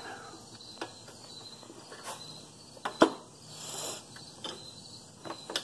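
Hand tools clicking and tapping on the metal of a small Briggs & Stratton flathead engine as it is taken apart, with one sharper click about three seconds in.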